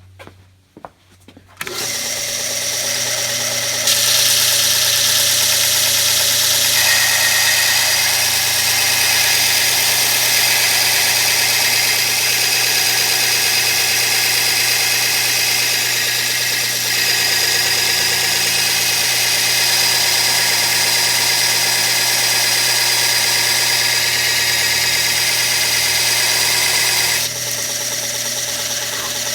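Electric mini belt sander running steadily with a high whine. It starts a little under two seconds in, gets louder about four seconds in, and drops back to the lower level near the end.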